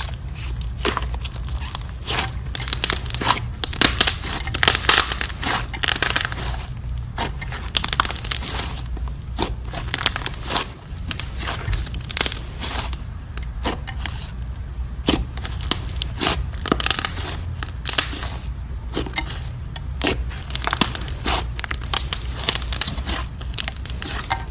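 Green slime being handled, with irregular crackling, popping and tearing sounds as it is squished and stretched, over a steady low hum.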